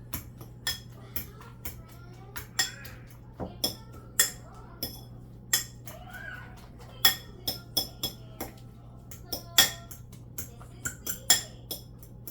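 Metal utensils clinking against dishes in an irregular series of sharp, ringing taps, a couple a second, over a steady low hum.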